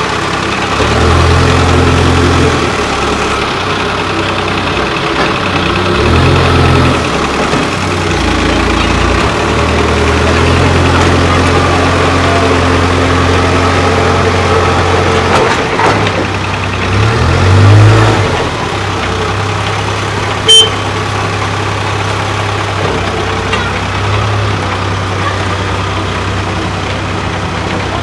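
CASE 770 EX backhoe loader's diesel engine running, revving up and settling back several times as the machine moves and works its loader bucket. A single sharp click about twenty seconds in.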